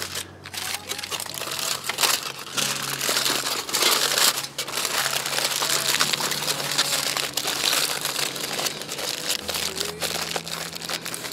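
Aluminium foil crinkling and crumpling in a dense crackle as hands fold it over and press it shut into a cooking packet.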